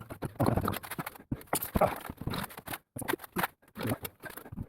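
Flat steel bar being bent in a vise-mounted bending attachment: irregular metallic clicks and knocks with scraping and creaking between them.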